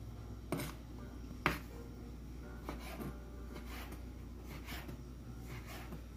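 Scattered light taps and clicks, one sharper click about a second and a half in, over a low steady hum.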